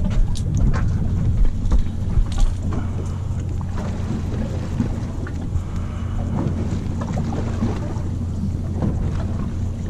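Fishing boat's engine idling with a steady low hum, wind buffeting the microphone. A few sharp clicks and knocks in the first couple of seconds.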